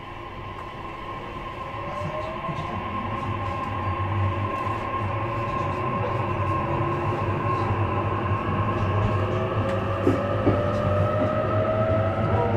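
Inside the motor car of an E233 series electric commuter train: the inverter and traction motors whine, several tones rising slowly in pitch and the sound getting steadily louder as the train accelerates, over the steady rumble of the wheels on the rails.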